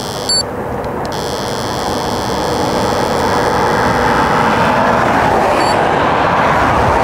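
LTI UltraLyte 20-20 lidar speed gun giving a short beep about a third of a second in and a fainter one near the end, the tone that signals a reading has been taken. Under it, road traffic noise grows steadily louder as vehicles approach.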